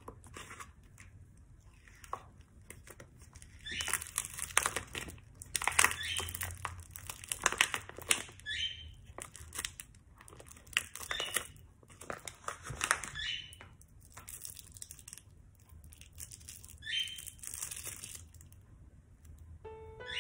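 Thin plastic film wrappers on imitation crab sticks (kanikama) crinkling and crackling as they are peeled open by hand. The sound comes in a string of short bursts with brief pauses, starting a few seconds in.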